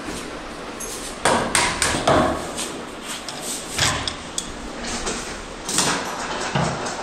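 Irregular sharp knocks, clicks and scrapes from work on a snooker table's corner pocket, as the leather pocket with its metal fittings and a screwdriver are handled against the wooden rail. The loudest cluster of knocks comes in the first couple of seconds.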